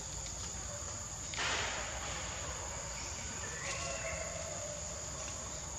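Insects keep up a steady high-pitched drone. A brief rustling hiss comes about a second and a half in.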